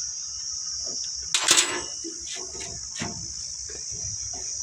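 Crickets chirring steadily in a high, even band. About a second and a half in there is one short, sharp clatter, louder than the insects, followed by a few faint clicks.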